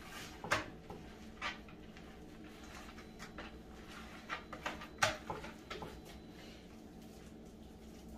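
Hands smoothing and patting a white paste over a taxidermy deer form: scattered soft taps and rubs, the loudest about half a second and five seconds in, over a faint steady hum.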